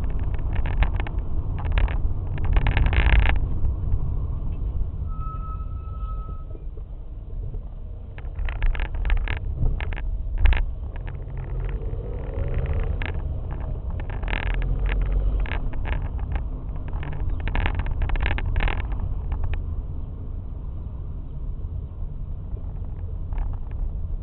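Car rolling with a steady low rumble and frequent short knocks and rattles. About five seconds in, its brakes give one steady high-pitched squeal lasting about a second and a half.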